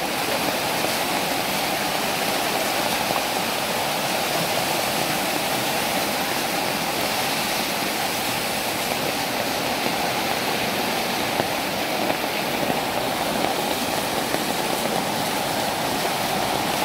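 Muddy floodwater rushing down a hill road like a river, a steady unbroken roar of running water from landslide runoff.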